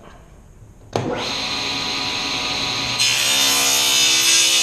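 Table saw switched on about a second in, its motor spinning up to a steady whine. About two seconds later the blade starts rip-cutting a strip of wood fed with a push stick, adding a louder, brighter cutting noise.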